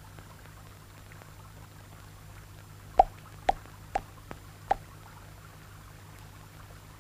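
Five short, hollow, pitched knocks about half a second apart, from a little before halfway to about two-thirds of the way through, over a faint steady low hum.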